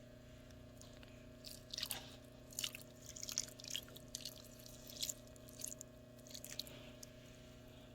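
Hands digging into damp finished compost in a worm bin to bury a leaf: a run of soft, irregular rustling and crunching scrapes over a steady low hum.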